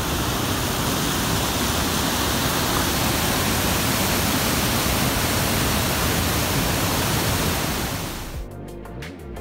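Waterfall and rapids rushing over rock, a loud, steady, even rush of water. It cuts off suddenly about eight seconds in and music with a regular beat begins.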